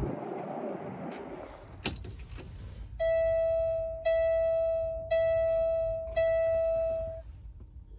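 Kenworth W900L dashboard warning chime sounding at key-on: four steady ringing tones about a second apart, each fading before the next. A sharp knock comes about two seconds in, after some wind on the microphone.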